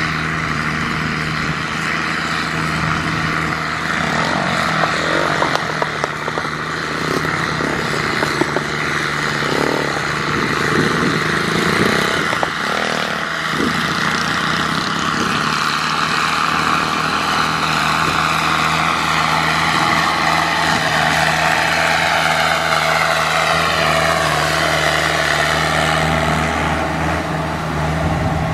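Kubota M6040SU tractor's diesel engine running steadily under load as it works a wet rice paddy, with a few sharp knocks in the first half.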